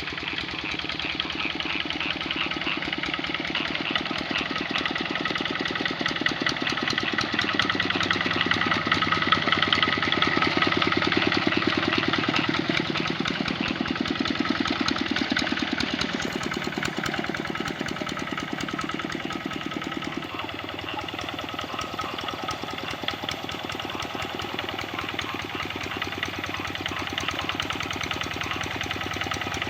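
Kubota RD65 single-cylinder diesel engine of a hand tractor running steadily under load while it pulls a harrow, with a rapid even firing beat. Its note shifts about two-thirds of the way through.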